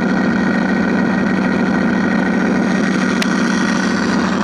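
Sound module of a FreeWing P-51D Mustang RC plane playing a steady recorded piston aero-engine drone. The drone does not rise or fall with the throttle, because the module is not yet matched to the throttle settings. A short click about three seconds in.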